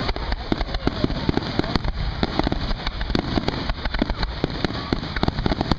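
Fireworks going off in rapid succession: a dense, continuous run of sharp cracks and bangs, several each second.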